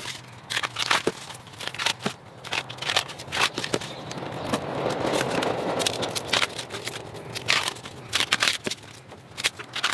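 Tough bamboo-shoot husks being torn and stripped off by hand: irregular sharp crackles and snaps, with a longer rasping tear swelling around the middle.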